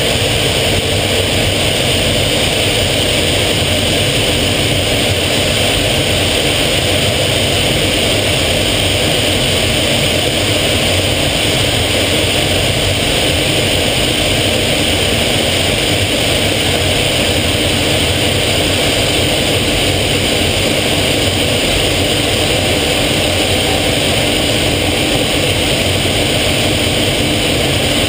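Steady aircraft engine and airflow noise heard inside the cockpit of a small military trainer in flight, loud and unchanging throughout.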